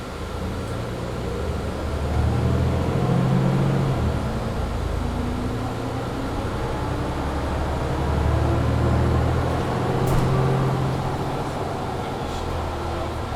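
Diesel engine of a Mercedes-Benz Citaro C2 G articulated bus accelerating hard under kickdown through its Voith automatic gearbox. The engine rises in pitch, drops at a gear change about four seconds in, then climbs again until near the end. A steady whine from the bus's loud heater runs underneath.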